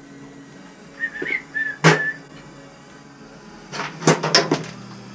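Tools and parts being handled during circulator pump work: a short wavering squeak about a second in, a sharp clack near two seconds, then a quick run of four or five clicks and clanks near four seconds, over a faint steady low hum.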